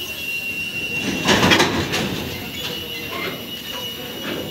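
Freight train of loaded flat wagons rolling slowly past on steel rails, its wheels giving a steady high-pitched squeal over the rolling noise, with a louder clattering surge about a second in.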